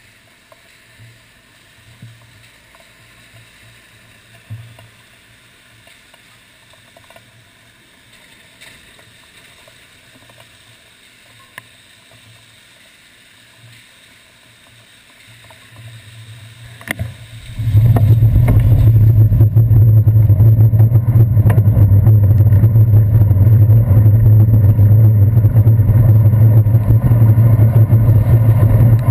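Faint, muffled traffic with a few light knocks from a handlebar-mounted camera in its waterproof housing while the bicycle stands still. Past the halfway point comes a knock, then a loud, steady low rumble of road vibration and wind once the bicycle rides off on the wet street.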